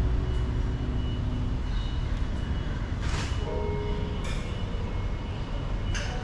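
Steady low rumble with a few short, sharp clicks as the sections of a metal hammock-stand pole are handled and set down.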